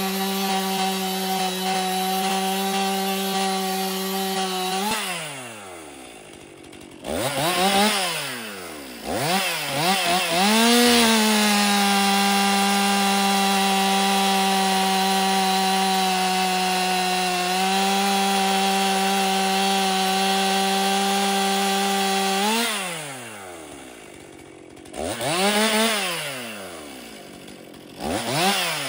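Stihl MS 261 C-M two-stroke chainsaw with a new, factory-sharpened chain cutting through a log at full throttle, dropping back to idle as the cut finishes about five seconds in. After a few revs it makes a second steady cut of about eleven seconds, falls back to idle, then revs up again near the end.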